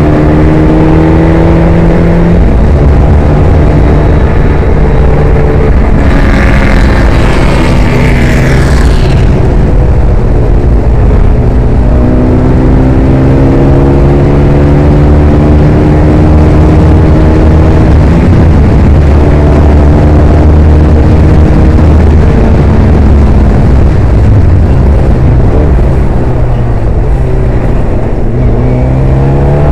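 Ford Kent crossflow four-cylinder engine of a vintage Formula Ford at racing speed, heard from the cockpit: the note climbs steadily through each gear and drops briefly at gear changes. About six to nine seconds in a brief rasping, hissy sound rides over it, and near the end the note falls as the car slows for a corner, then climbs again.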